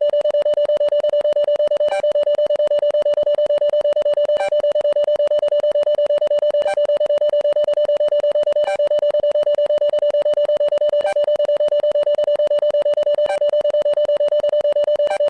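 Electronic emergency-alert alarm tone: one steady, mid-pitched tone pulsing very rapidly without a break, with a faint click about every two seconds.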